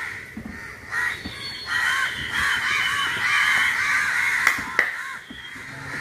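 A flock of crows cawing together in the mangroves, many overlapping calls that swell to their loudest in the middle. Two sharp clicks come about two-thirds of the way through.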